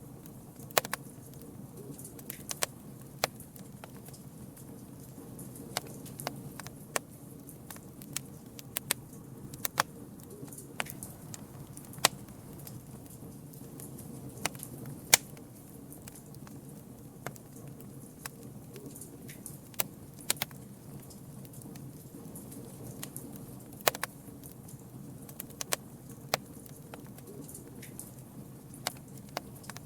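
Campfire crackling: wood pops and snaps at irregular moments, a few each second, over a low, steady rumble. The loudest snap comes about halfway through.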